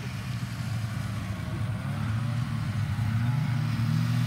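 A snowmobile engine running as the sled draws closer, growing louder, with its pitch rising a little about three seconds in.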